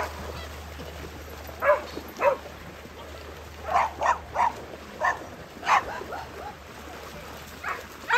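Dogs barking: short single barks, about a dozen, scattered irregularly.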